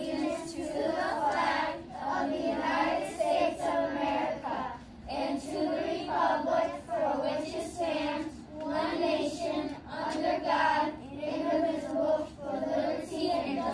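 A group of children reciting the Pledge of Allegiance in unison, phrase by phrase with short pauses between.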